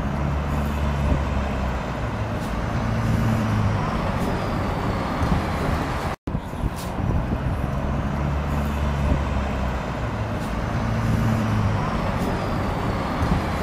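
City street traffic: a vehicle engine running close by with a steady low drone, over a faint high whine that slowly falls in pitch. A brief dropout comes about six seconds in, after which the same few seconds of sound play again.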